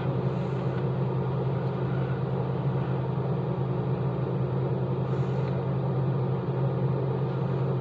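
Steady low machine hum with a faint rushing noise above it.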